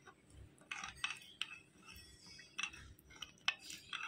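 A spoon stirring yeast and sugar into warm milk in a bowl to dissolve them, with light, irregular clinks and scrapes against the bowl.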